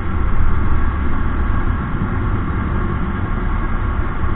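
Steady low rumble of a Bajaj Discover single-cylinder motorcycle riding at road speed, its engine mixed with wind buffeting on a camera mounted on the moving bike.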